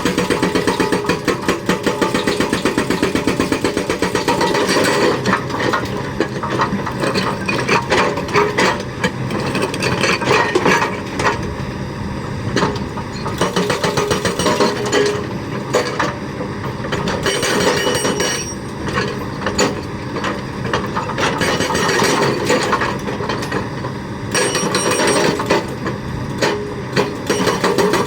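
An excavator-mounted hydraulic breaker hammering with rapid, even blows, which stops about five seconds in and starts again near the end. In between there are irregular knocks and clanks over the steady run of the excavator's diesel engine.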